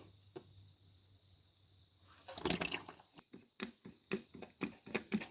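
Near silence for about two seconds, then a short scuffing noise and a string of short, irregular clicks and knocks.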